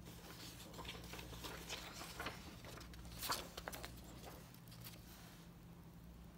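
A page of a paper booklet being turned by hand: faint crinkling and rustling of paper, loudest about three seconds in, over a steady low hum.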